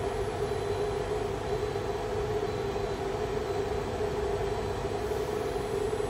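Steady mechanical hum with a constant mid-pitched drone, unchanging throughout.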